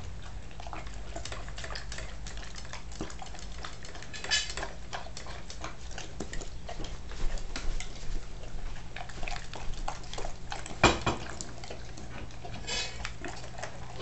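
Bernese Mountain Dog eating steak, gravy and kibble from a stainless steel bowl: sloppy chewing with irregular clinks and clatters against the metal bowl, the loudest clank about eleven seconds in.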